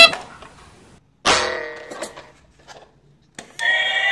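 Battery-operated plastic toy train being handled, with sharp knocks at the start and about a second in. Near the end a click, then the toy's electronic sound starts: a steady set of held tones.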